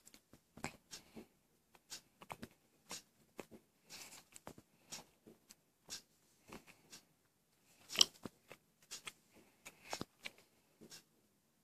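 Scattered light clicks, taps and rustles of a Nexus 5 smartphone being handled and turned over in the hand, with one sharper click about eight seconds in.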